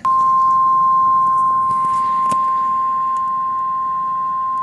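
Emergency Alert System weather alert tone: a single steady 1050 Hz beep, the NOAA Weather Radio warning alarm tone that signals an incoming warning message.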